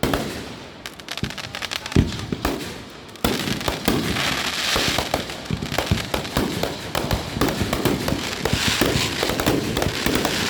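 Fireworks going off: a bang at the start and another about two seconds in, then from about three seconds a dense, unbroken run of rapid crackling pops.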